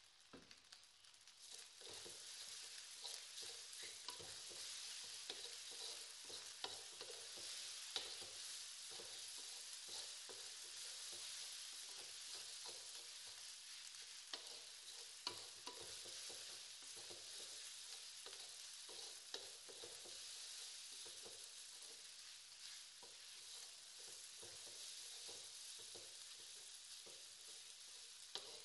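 Fried rice sizzling in an aluminium wok as a wooden spatula stirs and scrapes it, with scattered clicks of the spatula against the pan. The sizzle grows louder about two seconds in and then holds steady.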